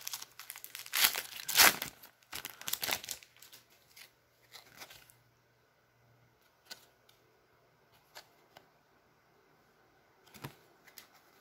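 Foil wrapper of a trading-card pack torn open and crinkled by hand, loudest in the first three seconds. Afterwards only a few faint clicks and rustles as the cards are handled.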